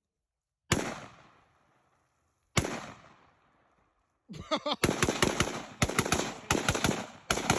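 Gunshots: two single shots, each trailing off in a long echo, then from about four seconds in a fast string of shots, several a second.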